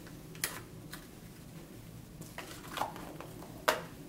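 A few light clicks and taps from a Zippo lighter being handled, the sharpest one near the end.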